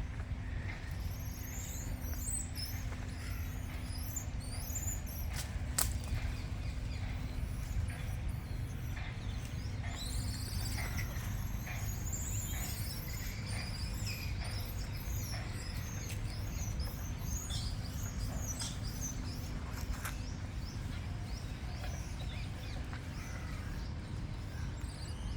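Many small birds chirping and calling over a steady low background rumble, with a single sharp click about six seconds in.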